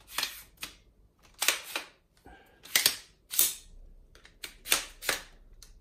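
Sharp plastic-and-metal clicks and clacks from the Ninebot Z10 unicycle's telescopic carry handle as it is pulled out and pushed back in, about nine at irregular spacing, the loudest about three seconds in.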